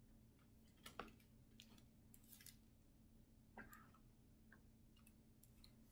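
Near silence with a few faint clicks and paper rustles, the sharpest about a second in: a picture book being handled as its page is turned.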